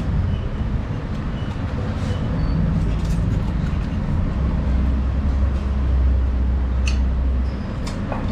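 Low, steady rumble like a running vehicle, with a deeper drone in the second half and two sharp clicks near the end.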